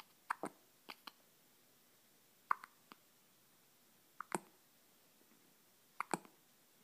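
Hiccups: short, sharp hics, most of them in quick pairs, coming about every one and a half to two seconds.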